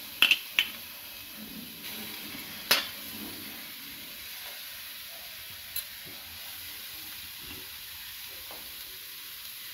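Grated coconut being scraped off a steel plate into a steel kadai, with a few sharp metal-on-metal clinks as the plate knocks the pan, over a steady faint hiss.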